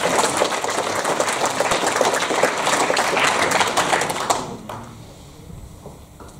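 Audience applauding, many hands clapping at once, fading away about four and a half seconds in.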